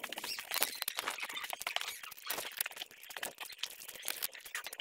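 Fingers squishing and mixing boiled rice with dal on a metal plate: a dense, unbroken run of quick squishy clicks.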